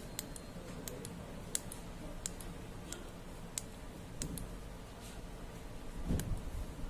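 Small tactile push buttons on an Arduino control board clicking as they are pressed one after another, roughly one sharp click every half second to second, each press stepping a counter up. A louder low bump comes near the end.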